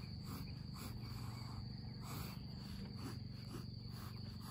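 Graphite pencil scratching across drawing paper in short, irregular strokes, over a steady high-pitched trill and a low hum.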